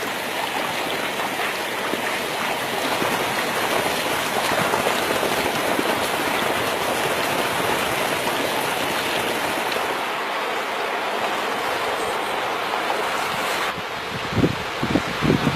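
Steady rushing of water, even and unbroken. Near the end, gusts of wind buffet the microphone with low bumps.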